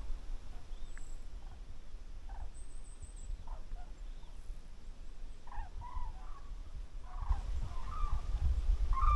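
A flock of large birds calling overhead: a scattered series of short, gliding calls. Low wind rumble on the microphone grows stronger near the end.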